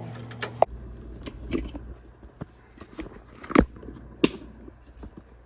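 Clicks and knocks of plastic parts of a microwave's door-switch assembly being handled and pried apart: scattered light taps, with two louder knocks about three and a half and four seconds in, over a low steady hum.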